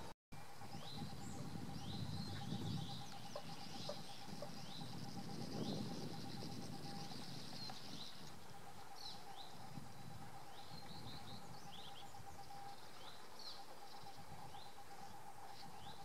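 Sand martins calling at a sandy-cliff nesting colony: many short, high chirps and raspy twitters, densest in the first half and thinning out later. Under them run a faint steady hum and low background noise.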